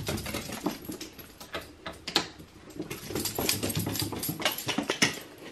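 A small dog's claws clicking and pattering on hardwood stair treads as it runs up the stairs, an irregular run of quick ticks.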